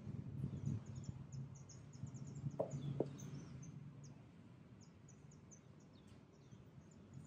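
Small birds chirping in short, quick high notes, over a low steady hum that fades about halfway through, with two light knocks in quick succession near the middle.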